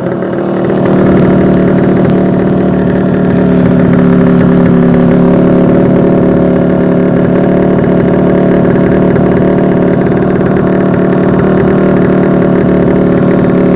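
Yamaha RXT 135's two-stroke single-cylinder engine idling steadily, getting a little louder about a second in.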